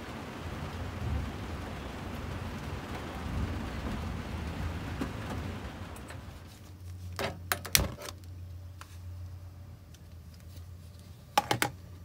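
Steady rain falling through the first half. After a cut, a low steady hum with two quick groups of about three sharp clicks, a gas stove burner's igniter sparking under a kettle until the burner lights.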